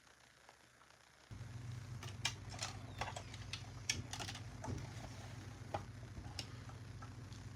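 Light, irregular clicks and taps of small plastic toy pieces being handled, over a steady low hum that starts abruptly about a second in.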